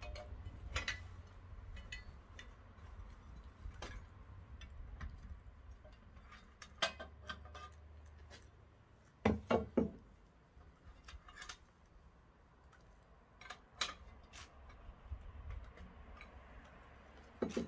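Scattered small clicks and knocks of metal parts being handled on a core drill's diamond core bit, with a louder double knock about halfway through, over a low steady rumble.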